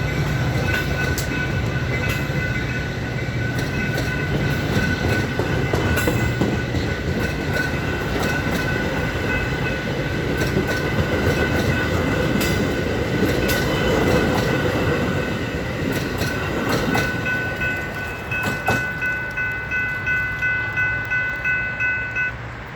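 Metra commuter train rolling past: a steady rumble of wheels on rail with sharp clacks over the rail joints, and a steady high ringing tone throughout. The rumble thins toward the end, beating about twice a second as it fades, and the ringing stops just before the end.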